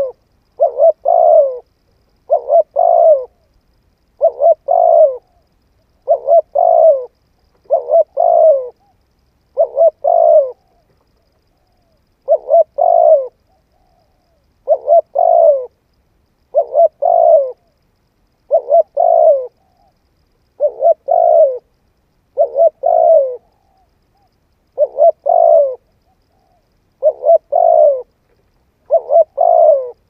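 Spotted dove cooing: a phrase of two short notes and a longer, lower-ending coo, repeated steadily about every two seconds, with one slightly longer pause about twelve seconds in.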